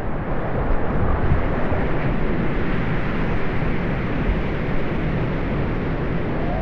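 Waterfall's water rushing in a steady, dense noise, heaviest in the low end.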